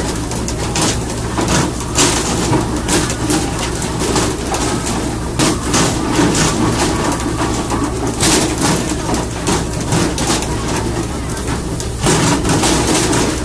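A fishing boat's engine droning steadily under splashing sea water, with irregular sharp slaps and knocks as tuna are swung aboard on poles and land on the deck.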